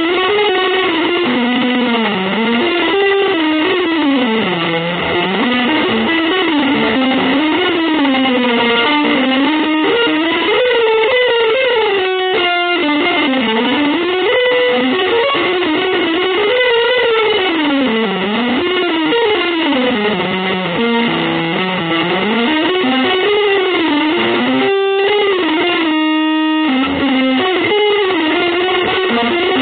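Electric guitar playing a fast solo line that winds continuously up and down in pitch, breaking off briefly about twelve and twenty-five seconds in, with a held chord shortly after the second break.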